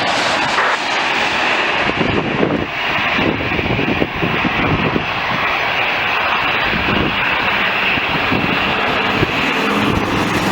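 Airliner engines, a loud steady noise as the plane goes by.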